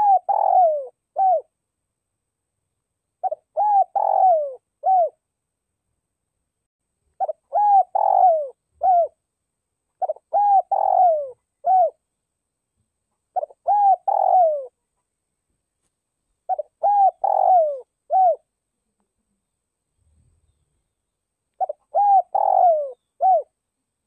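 Spotted dove cooing: a phrase of four or five coos, the middle one longer and falling, repeated about seven times at intervals of roughly three seconds. It is the full call that Vietnamese bird keepers use as a decoy to stir up wild doves.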